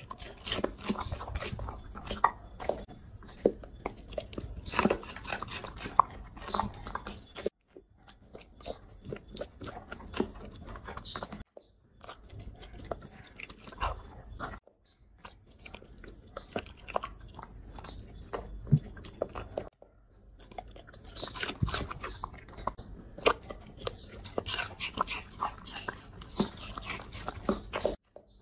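A dog chewing and crunching raw food, crisp vegetables and fruit such as cucumber and broccoli, with many sharp crunches among wet chewing. The chewing stops briefly about four times, then starts again.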